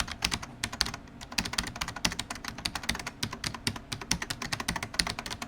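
Rapid, irregular typing on a computer keyboard, several keystrokes a second.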